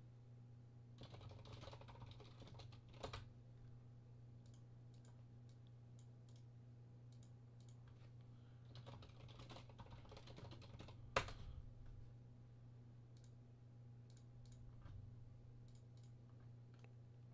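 Faint typing and clicking on a computer keyboard and mouse: scattered light keystrokes, with one sharper click about eleven seconds in, over a low steady hum.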